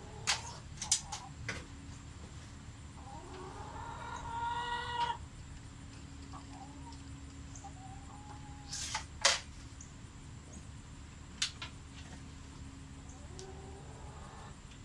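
Crosman F4 break-barrel air rifle being handled and cocked, with sharp metal clicks a fraction of a second in, about a second in and about a second and a half in, two more around nine seconds in as the barrel is broken open, and a lighter one a couple of seconds later. Between them a chicken clucks in one rising call, with a faint call near the end.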